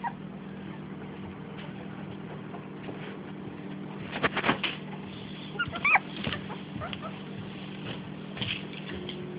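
Young miniature pinscher puppies give short high squeaks and yips while they play. A run of loud thumps or scuffles comes about four seconds in. A steady low hum runs underneath.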